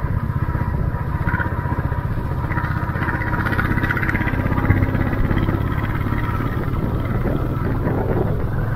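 A Royal Enfield Classic 350's single-cylinder engine runs steadily while the motorcycle is ridden along the road, with an even, quick pulsing. Tyre and wind noise are mixed in.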